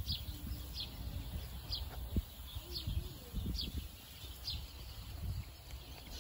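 A small bird chirping over and over, each chirp a single short note falling in pitch, coming roughly once a second, over low rustling and a few soft low sounds.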